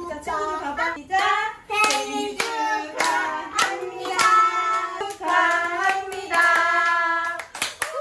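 A young child singing a song in a high voice, holding some notes, with hand claps in between.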